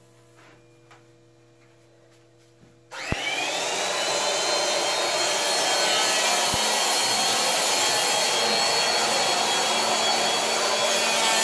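Electric power planer switched on about three seconds in, its motor winding up to a steady high whine. It then shaves the rail of a foam surfboard blank with a continuous loud rushing hiss.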